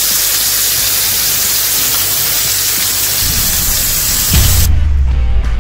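Loud steady hiss of ribeye steaks and lobster tails sizzling on a charcoal kettle grill. A low rumble builds about three seconds in and ends in a deep boom. The hiss cuts off suddenly and rock guitar music starts near the end.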